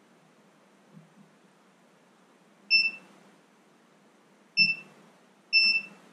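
Short high-pitched electronic beeps from a multimeter's continuity tester, three or four in all, the last a longer double beep, with faint soft knocks about a second in.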